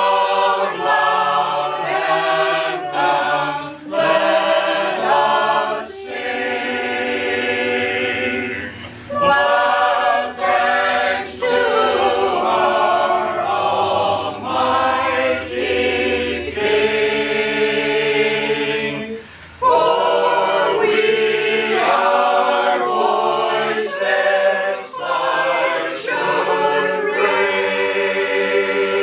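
A small mixed group of men's and women's voices singing a shape-note hymn a cappella in parts, the notes held and moving together with only short breaks, one a little before two-thirds of the way through.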